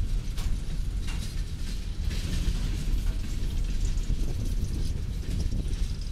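Coal train hopper cars rolling past: a steady low rumble with scattered sharp metallic clicks from the wheels and couplers.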